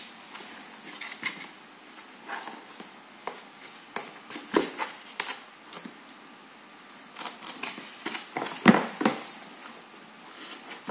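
A cardboard box handled and opened by hand: irregular scrapes, taps and rustles of cardboard, with a few sharper knocks around the middle and near the end.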